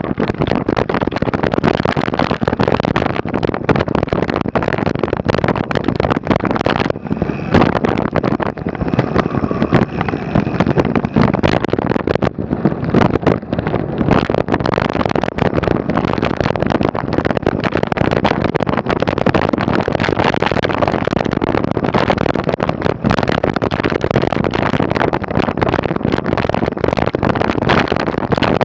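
Mountain bike ridden over a rough trail: wind buffeting the microphone, tyre noise and a constant rattle of knocks from the bike and camera mount. A faint high squeal comes in for a few seconds in the middle.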